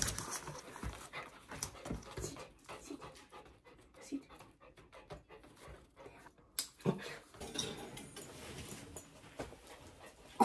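Japanese spitz panting, with scattered light clicks and taps throughout and one sharp knock at the very end.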